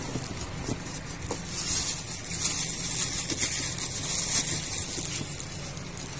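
Clear plastic bag crinkling and rustling as a new motorcycle crankshaft is handled and unwrapped in its cardboard box, over a steady low hum.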